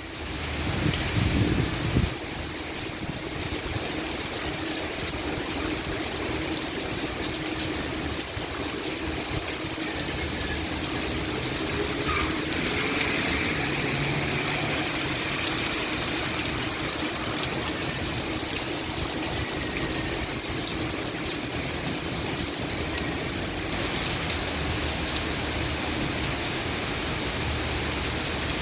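Heavy rain pouring steadily, driven by strong wind, with a louder low gust in the first couple of seconds.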